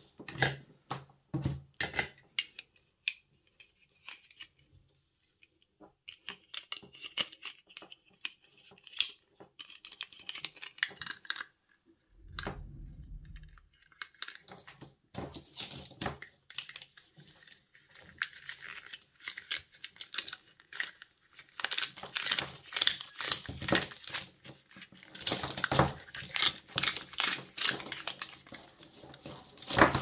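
A grey plastic cord-zipper cable wrap and computer cables are handled, giving scattered plastic clicks and rustles. There is a brief low thud about twelve seconds in. A denser run of plastic crackling and rustling comes in the last third, as the cables are zipped into the wrap.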